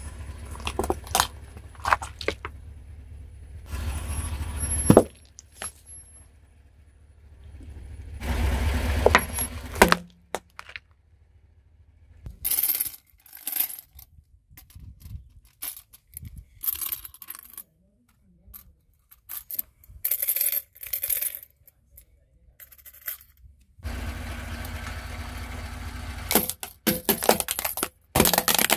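Plastic toy tambourines with metal jingles rattling in short bursts as they are handled and set down on concrete. Later a car tyre rolls onto them over a low rumble, cracking the plastic and jangling the jingles. Earlier there are tyre rumble and sharp cracks as other objects are run over.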